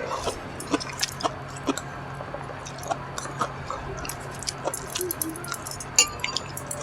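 Close-up chewing of a home-cooked meal, with irregular crisp crunches and wet mouth clicks. One sharper click comes about six seconds in.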